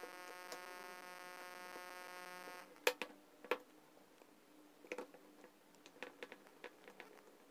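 Plastic housing of a Makita heat gun being closed up and handled on a bench: two sharp plastic clicks about three seconds in, half a second apart, then lighter clicks and taps. A steady buzzing hum runs through the first two and a half seconds and then stops.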